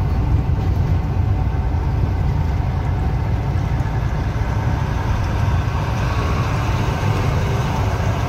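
Volkswagen Delivery 8.160 truck's diesel engine and road noise heard from inside the cab while cruising on the highway: a steady low drone.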